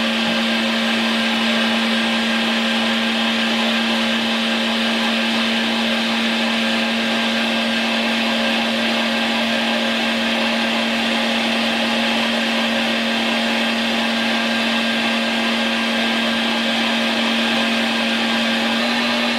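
LEM Mighty Bite #8 electric meat grinder running steadily with a constant hum while stuffing ground venison into sausage casing. The hum drops slightly in pitch near the end.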